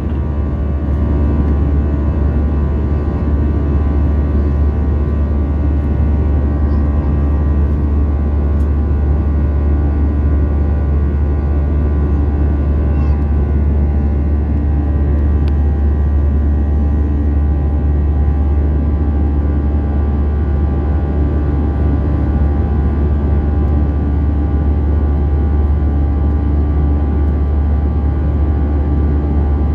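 Airbus A320 in flight, heard inside the cabin beside the wing: the steady drone of its jet engines and the rushing airflow, with a strong low hum underneath and faint steady tones.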